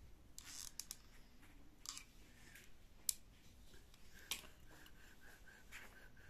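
Faint clicks and taps of wooden ice-cream sticks and a hot glue gun being handled on a work surface, one sharper click about three seconds in. A faint high tone pulses about four times a second over the last couple of seconds.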